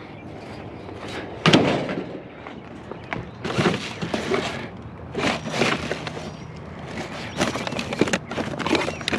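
Scrap metal clanking and rattling in a series of separate clatters as a small metal rack and other curbside junk are handled and tossed; the loudest clank comes about a second and a half in.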